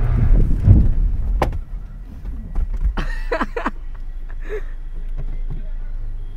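Honda City sedan's engine running as the car moves off, a low rumble loudest in the first second and a half, with a sharp click just before it eases. A few short high squeals follow about three seconds in, then the engine settles to a quieter steady hum.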